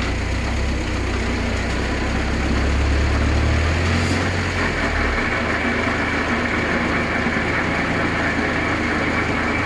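Motor vehicle running with a steady mechanical drone, the rear-axle growl ('ronquido'). A strong low rumble fades about halfway through as a higher steady hum comes in and holds.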